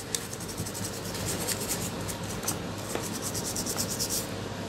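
Scratchy rubbing on the small power-key and IR-sensor board of a Samsung LED TV as it is cleaned of dust, in quick, irregular strokes.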